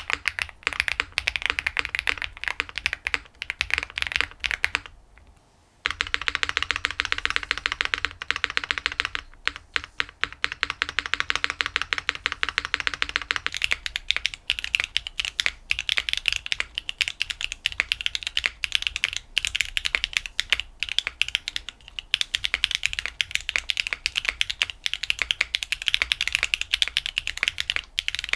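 Fast, continuous typing on a mechanical keyboard fitted with Clackbits full-POM linear switches (13.9 mm POM stem). There is a brief stop about five seconds in before the typing resumes.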